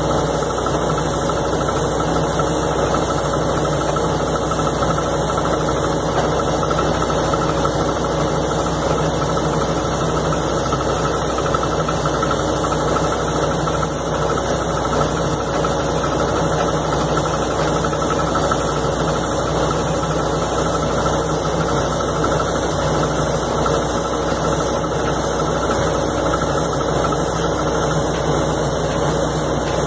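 Crawler-mounted anchor drilling rig running steadily while drilling with casing and rod: its engine and hydraulics give a loud, even drone with no breaks.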